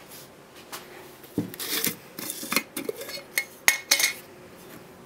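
Glass jar handled on a workbench and its screw-on lid unscrewed and lifted off: a run of clinks and short scrapes of glass and lid between about one and a half and four seconds in.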